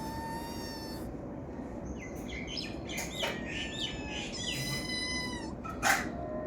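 Cat giving high-pitched mews and short chirping calls: one steady call at the start, a quick run of short falling chirps, then a longer call. A single sharp click comes near the end.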